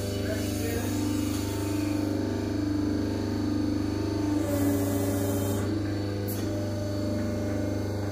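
Hydraulic press machine for cricket balls running with a steady hum. About four and a half seconds in there is a hiss lasting about a second, then a short click.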